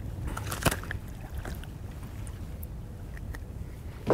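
Steady low rumble of wind and water around a small fishing boat, with a few sharp clicks and knocks as a just-caught crappie is swung aboard and handled. The loudest knock comes just over half a second in, and another comes near the end.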